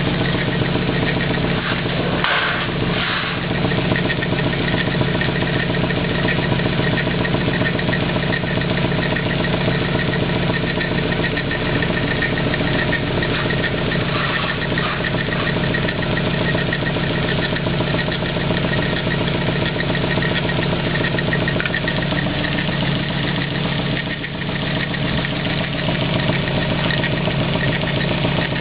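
Nissan 240SX's freshly swapped engine idling steadily. The owner hears an odd noise in it that he can't explain, likened to a bell or a playing card in bicycle spokes.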